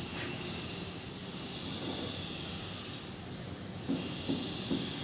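Steady mechanical hum and hiss of a metal-cutting band saw workstation, with three light metal knocks near the end as the workpiece is clamped in the saw's vise.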